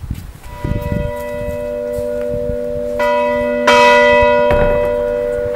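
Church bell ringing: it is struck about half a second in, again about three seconds in and once more just after, each stroke leaving a long, slowly fading hum of several tones.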